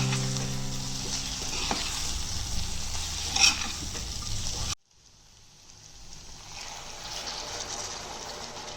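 Chicken tikka masala sizzling and being stirred in a pan, with a sharp clink about three and a half seconds in. The sound cuts off abruptly just before five seconds in, then the sizzle builds back up.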